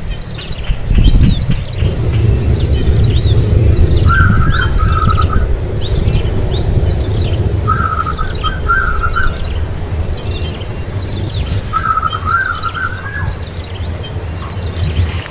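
Birds chirping: many short, quick high chirps throughout, and a lower warbled call phrase repeated three times, about four seconds apart. Under them runs a loud, low rumble.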